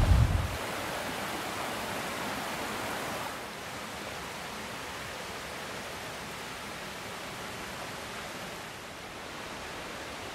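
Steady rush of a rocky creek's running water, a little quieter from about three seconds in. Wind buffets the microphone with a low rumble for the first half second.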